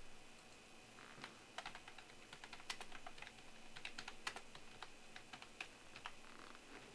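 Faint typing on a computer keyboard: a run of quick, irregular key clicks starting about a second in and stopping shortly before the end.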